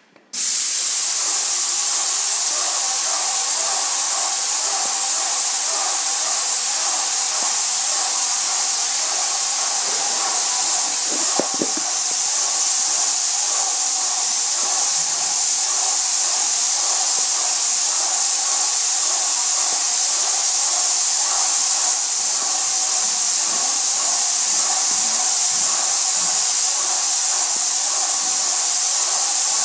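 Airless paint sprayer spraying emulsion as a sealing coat onto new plaster. It gives a loud, steady hiss that starts abruptly just after the beginning and does not let up, with steady mid-pitched tones underneath.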